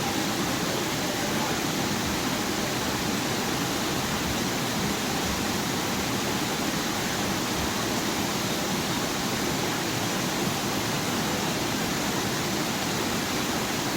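Steady rush of water pouring down a waterfall: a dense, even noise that does not change.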